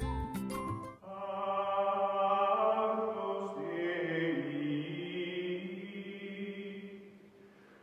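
Closing music: a short run of struck notes gives way about a second in to long, held chant-like notes that shift in pitch midway and fade out near the end.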